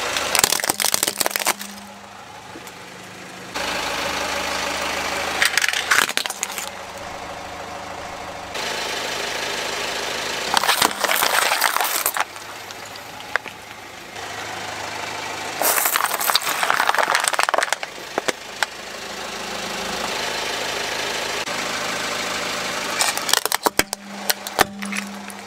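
A car's tyre rolling slowly over plastic toys and drink bottles and crushing them: about five bursts of cracking and crunching plastic, with liquid spraying from the burst bottles. Between the bursts the car's engine idles steadily.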